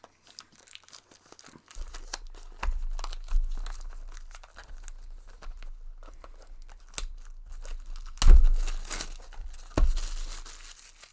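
Packaging of a trading card box being torn open and crinkled by hand, with scattered crackles throughout and two louder rips about eight and ten seconds in.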